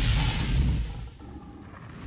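Cinematic logo-intro sound effect: a deep, fiery rumble that fades away about a second in, leaving a low, quieter tail.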